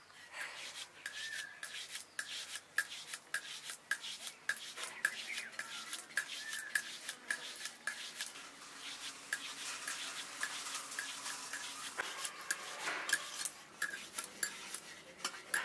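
Hands rolling and pressing rice-flour dough on wooden boards, with many small irregular clicks and taps of fingers and bangles against the wood.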